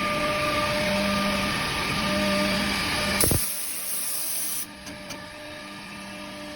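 Woodworking machinery running with a steady hum. About three seconds in, the sound cuts abruptly to a quieter machine noise, with a high hiss for a second or so.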